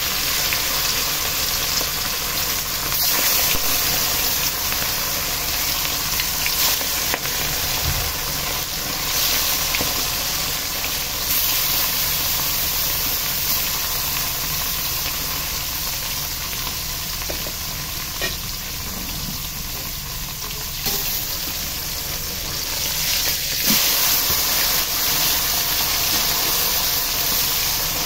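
Fish pieces sizzling and crackling as they fry in hot oil in a wide metal karai.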